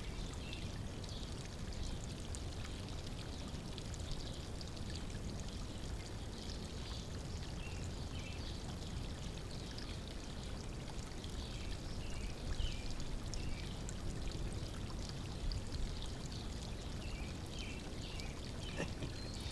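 Water pouring steadily into a backyard pond, a continuous splashing and trickling flow.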